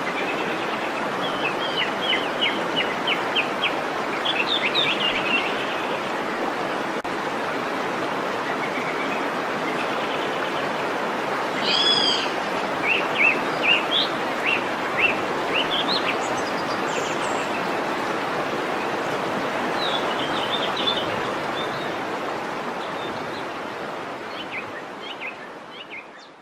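Waterfall rushing steadily, with birds chirping now and then in short spells over it. The whole sound fades out over the last few seconds.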